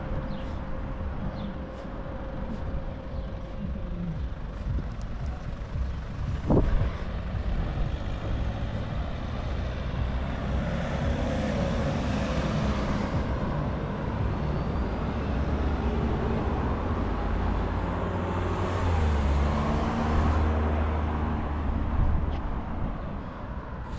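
Road traffic: motor vehicle engines running close by with a steady low hum, and a single sharp knock about six and a half seconds in.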